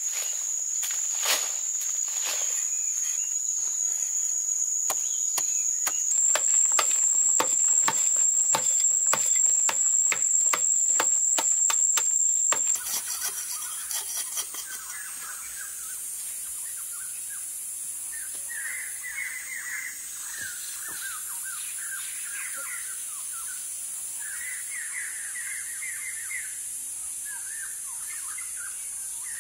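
A bladed digging tool striking and scraping into hard earth in a quick run of strokes, about two a second at first and faster from about six seconds in, over a steady high insect drone. About halfway through this stops and gives way to a high hiss of insects with birds chirping.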